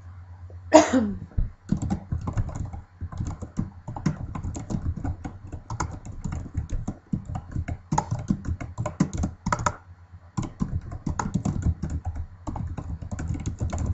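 Typing on a computer keyboard: a quick run of key clicks, broken by two short pauses. About a second in, before the typing starts, a brief sliding sound falls in pitch.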